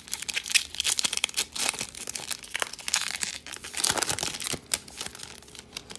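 Crinkling of a foil booster pack wrapper as trading cards are handled, irregular crackles throughout.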